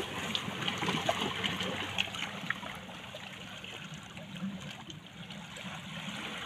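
Steady rush of moving water, a trickling, washing sound with a few faint ticks.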